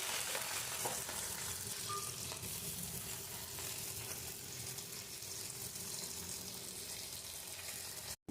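Food frying and sizzling in a pan, a steady hiss with some stirring. It cuts off abruptly near the end.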